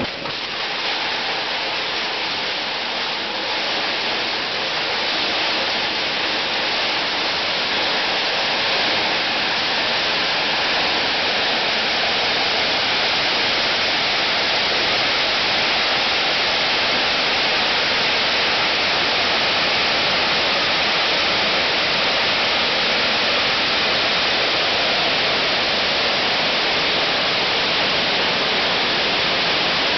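PET bottle label-removing machine running, fed with plastic bottles from a conveyor: a loud, dense, steady rushing noise that grows louder over the first several seconds, then holds.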